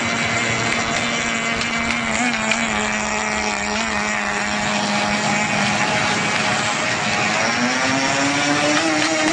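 Small engines of radio-controlled model boats running flat out: a steady high-pitched drone that sags a little, then climbs in pitch from about seven seconds in as a boat speeds up or comes closer.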